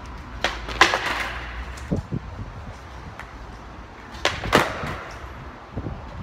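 Skateboard on brick pavers: the wheels rumble steadily over the bricks, and the deck and wheels clack down in sharp knocks during beginner trick attempts, about a second in, near two seconds and about four and a half seconds in.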